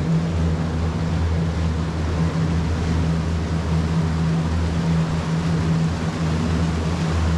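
A tour boat's engine running steadily at cruising speed, a low drone, under an even rush of water churning in its wake.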